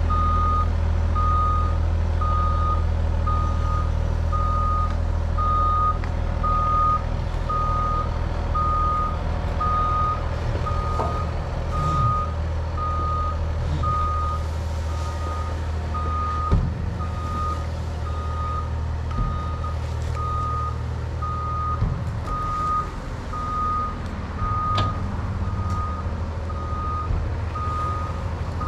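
A travel alarm beeps steadily, about three beeps every two seconds, as the Cat 303.5 mini excavator tracks across the yard. A large diesel engine runs steadily underneath, with a few knocks and clanks, the sharpest about halfway through.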